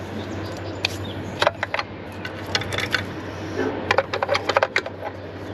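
A hand tool clicking and scraping on metal while working a stubborn fastener loose: scattered sharp clicks, denser about four seconds in, over a steady low hum.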